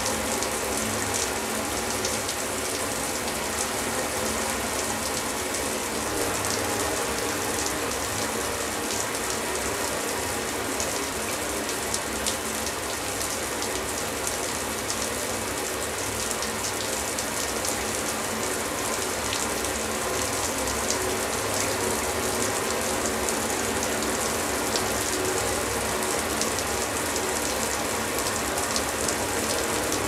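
Shower running steadily: an unbroken hiss of falling water with a fine spatter of droplets.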